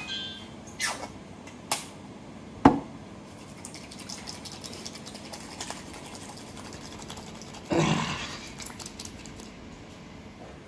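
Small plastic bottle of hand sanitiser clicking a few times as it is opened and squeezed, the loudest click about three seconds in, then hands rubbing the gel together with a soft wet rubbing noise that swells near the end.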